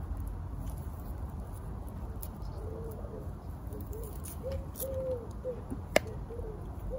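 A bird cooing, a run of soft low notes repeated in phrases that begin about two and a half seconds in, with a single sharp click near the end.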